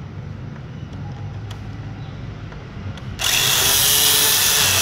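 Tamiya Mini 4WD car's small electric motor and gears switched on about three seconds in, a loud high whirring buzz like a tiny drill, running on a freshly swapped-in battery.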